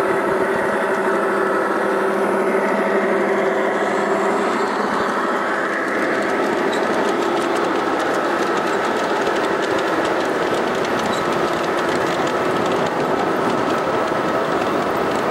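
G-scale model freight train running past on layout track: a steady motor and gear whine, with the wheels clicking over the rail joints as the cars roll by.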